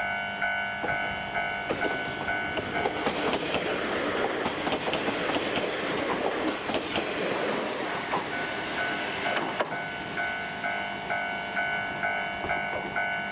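A Kominato Railway diesel train passes close by, its wheels clattering over the rail joints. A level-crossing alarm dings about twice a second; it is drowned out while the train goes past from about two to nine and a half seconds in, then heard again near the end.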